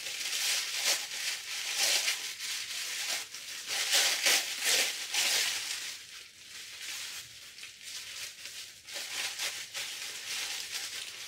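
Tissue paper rustling and crinkling as it is unwrapped by hand, busier and louder in the first half, then softer.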